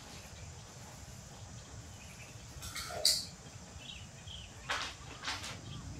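Baby macaques giving a few short, high calls, the loudest about three seconds in, over a faint low hum, with a couple of brief scuffs near the end.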